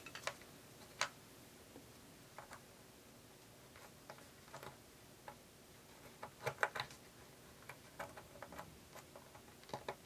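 Scattered faint clicks and light taps as hands turn and press a B&W Nautilus tweeter pod onto its mount on the speaker cabinet, with a quick cluster of clicks about six and a half seconds in and more near the end.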